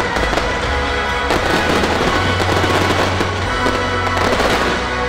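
Fireworks bursting and crackling over loud show music. The crackle is thickest from about a second in until near the end.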